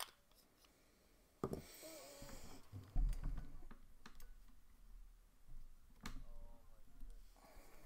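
Scattered desk handling noises: a few sharp clicks, a short rustle about a second and a half in, and a low bump about three seconds in, as a pen and paper are handled at a desk.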